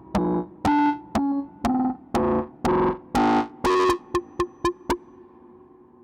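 Synthesized sci-fi sound effect: a run of short electronic bleeps of changing pitch, about two a second, quickening into a few rapid blips before a faint hum trails off.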